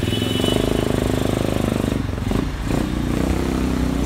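Motorcycle engine running, its note dipping and rising again briefly about halfway through.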